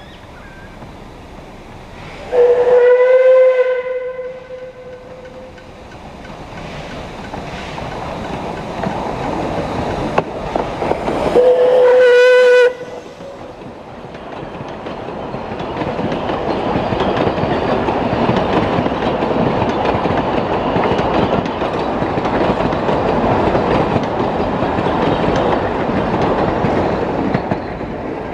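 A narrow-gauge steam train approaching and sounding its whistle twice: a held blast about two seconds in and a second one about eleven seconds in that stops abruptly. Its wooden carriages then roll past close by, the rumble of wheels on rail growing louder and holding.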